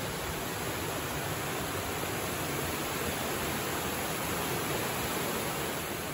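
Small waterfall on a forest creek, water splashing and rushing in a steady, even roar.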